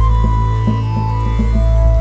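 Background music: a steady low drone under a repeated plucked pattern, with a long held melody line that steps down in pitch.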